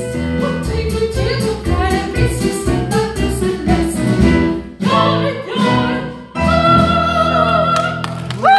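A woman singing a German operetta song over instrumental accompaniment, closing on a long held note with vibrato in the last two seconds.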